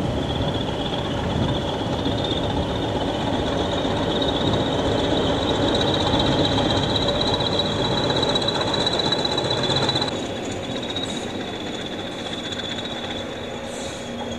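Pair of Class 20 diesel locomotives running light past, their engines giving a high steady whistle over a rumble. The sound grows louder, then about ten seconds in it drops in level and slides down in pitch as the locomotives pass.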